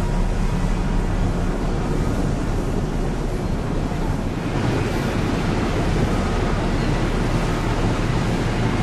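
The ferry Mega Express Two moving close by: a steady low engine drone, with the hiss of water churned by its propellers growing louder about halfway through.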